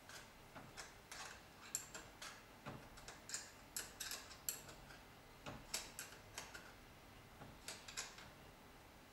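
Faint, irregular small clicks and taps of hands handling wires and their connectors, some two or three a second at the busiest.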